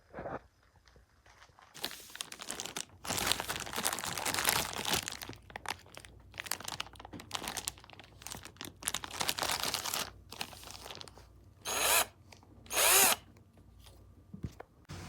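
Cordless drill running, with several seconds of uneven, scraping noise. Near the end come two short, loud bursts of the motor, the second the loudest.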